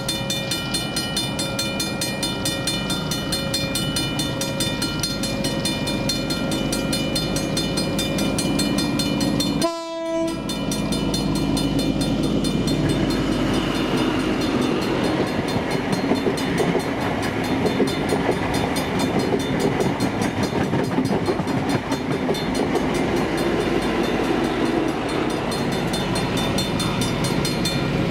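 A mechanical level-crossing bell ringing with rapid, even strikes for about ten seconds. After a brief break, a train passes with a steady rumble and wheel noise.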